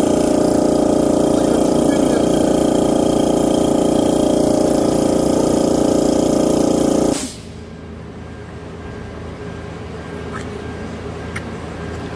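A loud, steady electric machine running off the van's 220 V inverter and battery, switched off abruptly about seven seconds in, leaving a much quieter steady hum.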